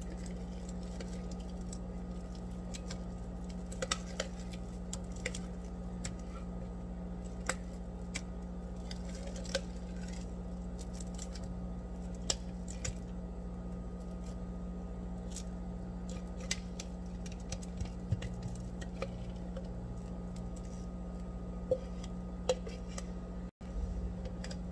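Soft squelches and light clicks as thick blended tuna paste is tipped and scraped out of a glass blender jug into a bowl, over a steady low hum. The sound drops out for a moment near the end.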